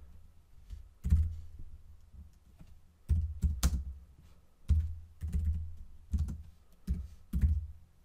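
Computer keyboard being typed on in short bursts of a few keystrokes with pauses between, each key press giving a sharp click with a dull thud.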